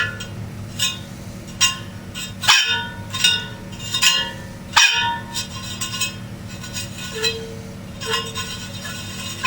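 Vintage Fasco exhaust fan motor running with a steady low hum while its bearings screech in irregular high squeals, the loudest about two and a half and five seconds in: the bearings are dry and starved of oil.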